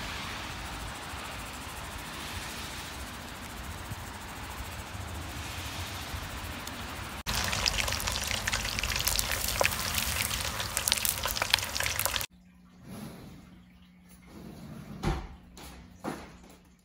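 A steady hiss, then a pork hock deep-frying in a pot of oil over a wood fire, sizzling and crackling densely for about five seconds. After that it goes much quieter, leaving a low hum and a few soft knocks.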